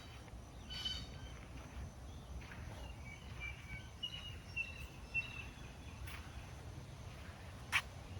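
Outdoor ambience of birds calling over a low steady rumble. There are two short, harsh calls with many tones near the start, chirping in the middle, and a single sharp click near the end.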